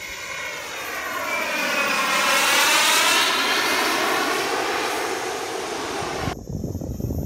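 Jets-Munt M70XBL model turbine engine on an RC L-39 jet flying past with a high jet whine, swelling to its loudest about three seconds in and then easing off. Near the end the sound cuts off abruptly to a rougher, gusty rumble.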